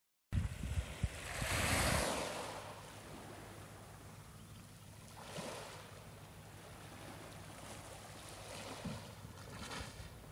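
Small waves washing up on a pebble shore, over a low rumble of wind on the microphone. The biggest wash swells up about two seconds in, with smaller ones about five and ten seconds in.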